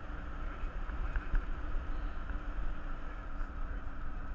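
A car driving: a steady low rumble of road and engine noise with a light hiss over it.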